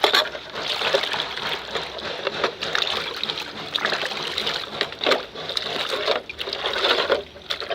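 Water running and splashing over a plastic wind-deflector panel as it is washed, with short sharper splashes through it.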